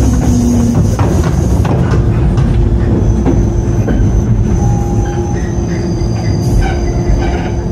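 JR 103 series electric train (motor car KuMoHa 103-3509) heard from on board running on the rails: a steady low rumble of wheels and traction gear, with a few rail-joint clicks and a thin, high wheel squeal from about three seconds in, easing slightly near the end as it slows toward a station stop.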